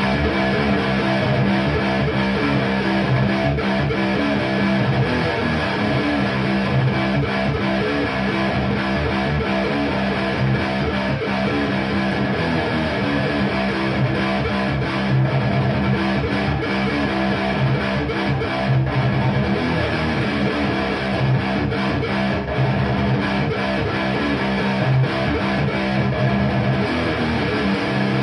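Electric guitar, a Blackmachine with DiMarzio Fred pickups, played continuously through a Framus Cobra 100-watt valve head and a Marshall MF400A cabinet with Celestion G12K-100 speakers.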